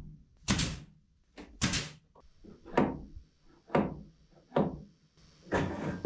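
A series of about six heavy knocks on wood, roughly one a second, as a scrap-wood cabinet piece is knocked into position before nailing.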